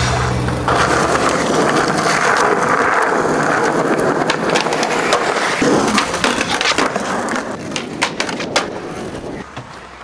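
Skateboard wheels rolling on concrete sidewalk, then in the second half a run of sharp clacks as the board is popped and lands.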